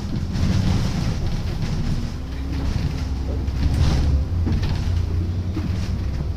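Double-decker bus on the move, heard from inside: the diesel engine and drivetrain run with a steady low rumble. A few short rattles or knocks from the bodywork come through, most noticeably about four seconds in.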